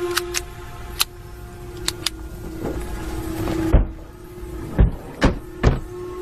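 Sharp metallic clicks of a pistol being handled and its slide racked, over a steady low drone. In the second half come four heavy thumps, and the sound cuts off suddenly at the end.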